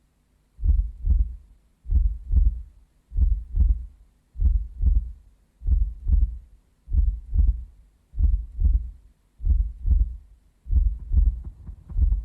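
Heartbeat sound effect: deep double thumps, lub-dub, repeating slowly and evenly about once every one and a quarter seconds.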